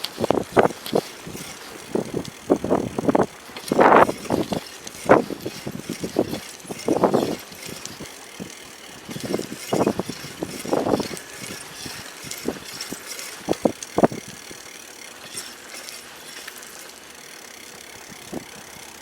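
Bicycle being ridden over uneven ground: irregular rattles and knocks from the bike, with louder clusters about four, seven and ten seconds in, easing off near the end.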